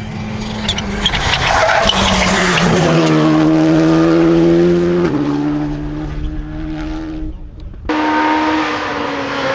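Porsche 992 GT Rally engine running hard on a rally stage. Its note climbs about two seconds in, holds steady and loud, then drops in one step about five seconds in. Near the end it breaks off briefly and comes back suddenly at a different pitch.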